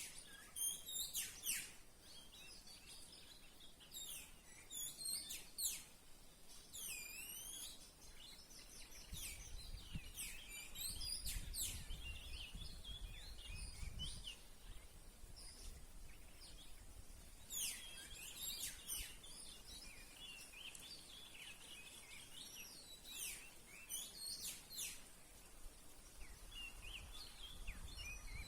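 Songbird calls: clusters of short, high chirps and quick falling whistles that come in bursts every few seconds, over a faint background hiss and a low rumble in the middle.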